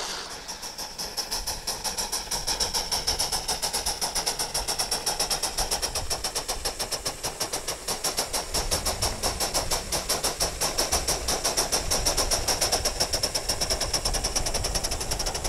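Aster gauge 1 live-steam model of a class 52 locomotive under way, its exhaust chuffing in fast, even beats with a steady high hiss of steam over them.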